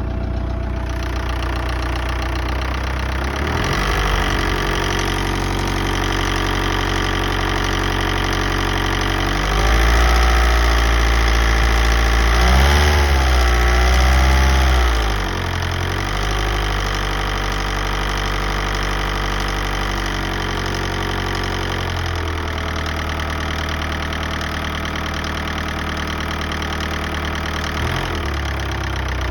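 VW 1.9 TDI ALH four-cylinder turbodiesel idling, revved briefly a few seconds in, held at higher revs with rises and falls for about five seconds near the middle, then back to idle with a couple more short blips. It carries a noise that appeared after a new injection pump was fitted.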